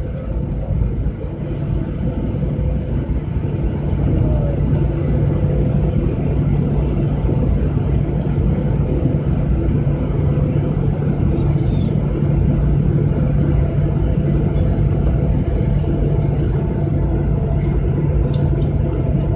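Jet airliner engines running, heard from inside the passenger cabin as a steady low hum, with the plane rolling along the ground. The hum grows a little louder about four seconds in.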